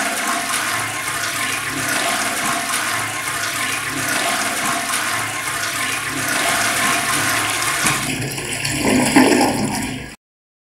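Toilet flushing, water rushing and swirling through the bowl; the sound cuts off suddenly near the end.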